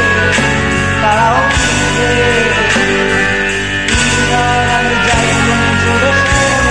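A man singing a Bengali song over a karaoke backing track.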